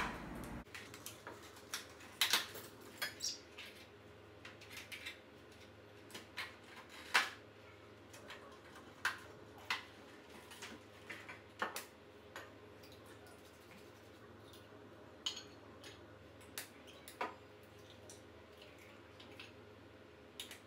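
Scattered light clicks, taps and clinks of eggshells and utensils against glass and metal mixing bowls as eggs are cracked and handled, over a faint low hum.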